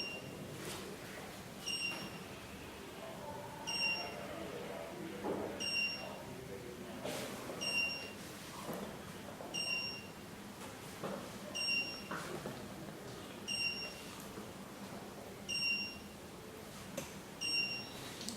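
ATSS Active 207 alarm panel's buzzer giving short, high single beeps about every two seconds, nine in all: the arming-delay countdown after a zone is activated, before it arms.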